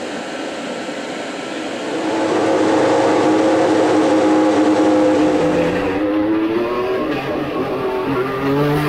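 Mercedes-AMG F1 W11's turbocharged 1.6-litre V6 hybrid power unit running, its steady note coming in about two seconds in. The pitch dips around six seconds in, and a deeper note joins near the end as the car pulls away down the pit lane.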